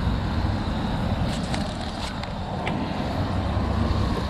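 Trout fillets sizzling in butter in a small frying pan on a portable butane camp stove, with a few sharp pops of spatter near the middle, over a steady low rumble.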